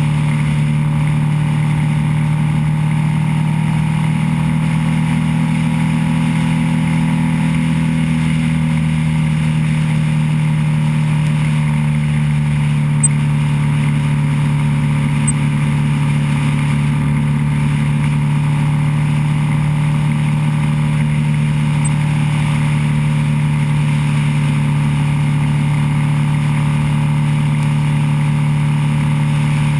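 Motorcycle engine running steadily at cruising speed, heard from a camera mounted on the bike, with wind and road noise over it. The engine note holds nearly the same pitch throughout.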